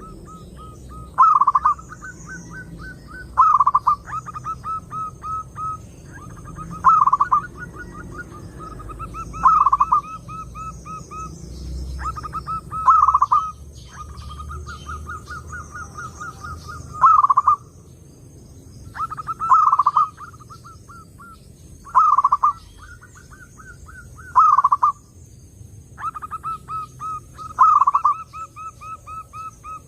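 Zebra dove (perkutut) cooing: about ten phrases, each a run of quick staccato notes that ends in a louder rolling coo, repeating every two to four seconds.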